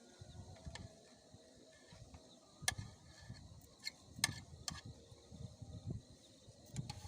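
A few sharp clicks and knocks, the loudest about two and a half and four seconds in, over low rumbling bumps.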